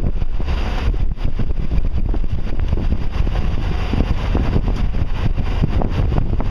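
Wind buffeting the camera microphone: a loud, steady low rumble broken by irregular crackles.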